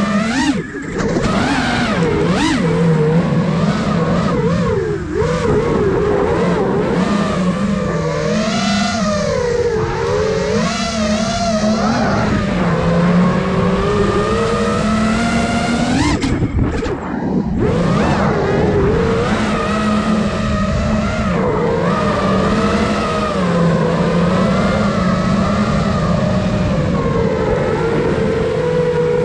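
Motors and propellers of a 5-inch FPV quadcopter, iFlight Nazgul Evoque F5, whining close up from the onboard camera. The pitch wavers up and down as the throttle changes. About 16 seconds in there is a sharp rising punch, then a brief dip.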